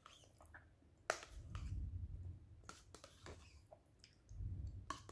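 Eating yogurt with a metal spoon from a plastic cup: a few sharp clicks of the spoon against the cup, the loudest about a second in, with soft mouth sounds of eating.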